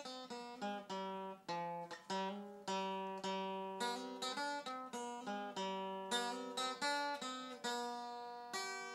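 Acoustic guitar played on its own: a run of plucked notes and chords, about two a second, with a final chord left ringing near the end.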